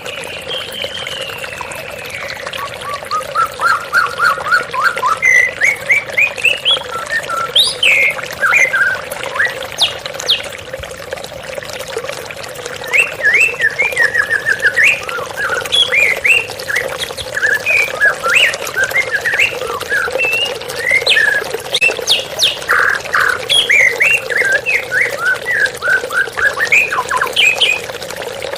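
White-rumped shama (murai batu) singing rapid phrases of quick whistled, gliding notes, with a short break about eleven seconds in. Underneath is the steady rush of a waterfall.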